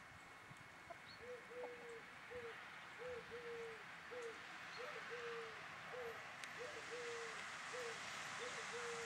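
A dove cooing in a steady, repeated three-note phrase, short-long-short, starting about a second in, five phrases in all.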